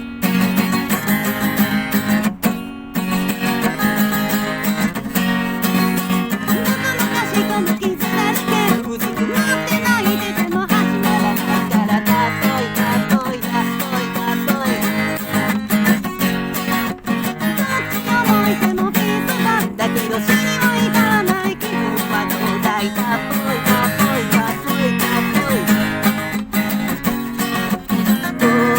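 Acoustic guitar strummed hard at a fast tempo. A man sings in falsetto over it from about eight seconds in.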